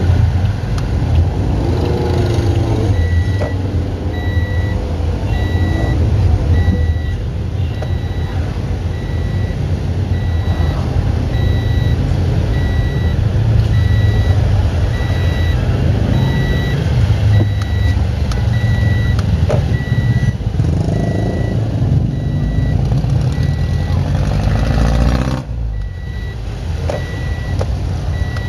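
Car cabin noise: a steady low rumble of the car driving. A high electronic beep repeats about once a second through most of it.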